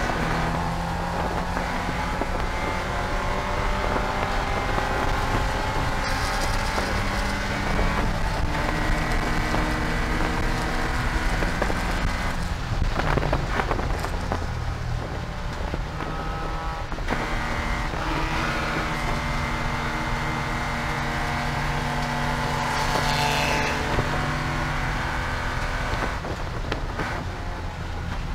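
Porsche 944 Spec race car's four-cylinder engine heard from on board, running hard at racing speed, its pitch rising and falling and breaking several times as the driver shifts gears and brakes for corners.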